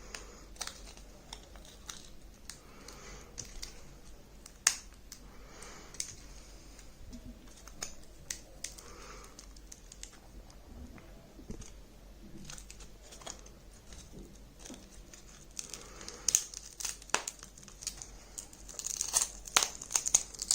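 Scattered small clicks, scrapes and crackles of a tablet's internal parts and circuit board being worked apart by hand, busier and louder near the end.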